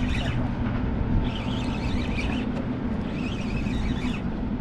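Steady low engine hum with wind noise, and three short bursts of rapid high chattering over it.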